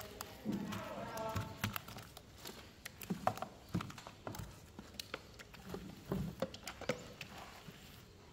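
Irregular light taps and clicks from hand work with a small paint roller pressing resin into fiberglass mat. A voice is heard briefly about a second in.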